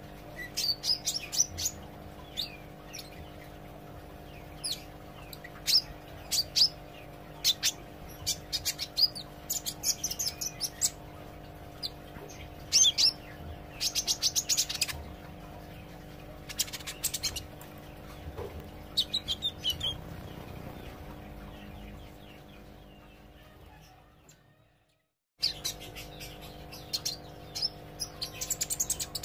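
A green sunbird ('kolibri ijo') singing in bursts of short, sharp high chirps and quick rattling trills, over a steady low electrical hum. The sound fades and cuts out for about a second near the end, then the chirping starts again.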